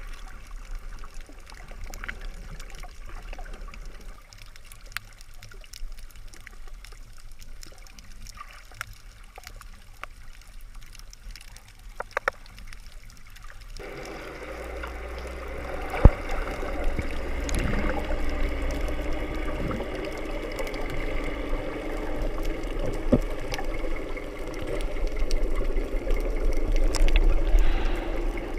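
Muffled water sounds picked up by an action camera held under water: sloshing and trickling with scattered small clicks. About halfway in the sound turns louder, with a steady underwater drone and a sharp knock a couple of seconds later.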